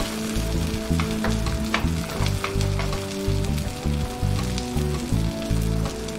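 Beaten eggs with chopped leek and parsley frying in a pan: a steady sizzling hiss with scattered pops and crackles. Background music with steady notes plays underneath.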